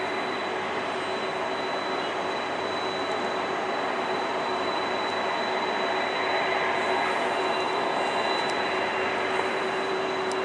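Steady jet roar from a Boeing 777-200LR's GE90 engines as it rolls out along the runway after landing, swelling slightly partway through. A constant high whine and a lower hum run under it.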